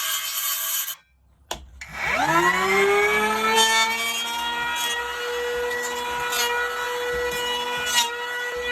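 Felisatti electric hand planer shaving wood, then cutting out abruptly about a second in. After a click, its motor spins up with a rising whine and runs unloaded at a steady high pitch.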